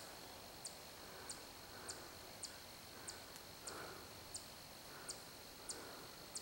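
Faint insect chirping: a short, high chirp repeating about one and a half times a second over a steady high hum.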